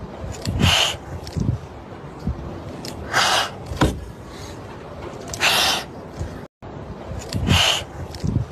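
A kitten hissing: four short hisses, each about half a second long and about two seconds apart.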